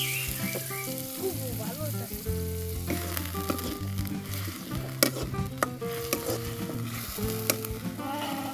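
Food frying in hot oil in a metal wok, sizzling steadily, while a metal spatula stirs and scrapes it, with a few sharp knocks of the spatula against the pan about five seconds in.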